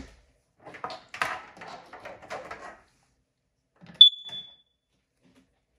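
Clicks and scraping of handling as the Kidde Nighthawk KN-COP-DP carbon monoxide alarm is plugged into a wall outlet, then one short high-pitched beep about four seconds in: the alarm's power-up chirp.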